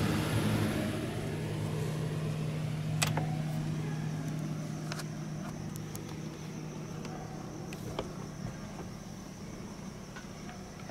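A steady low mechanical hum that fades away over the first few seconds, a few sharp clicks, and from about four seconds in a steady high trill of crickets.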